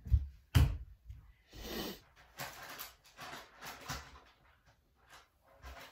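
Several short sniffs and breaths from a person whose eyes are watering, with a few soft knocks and rustles in between.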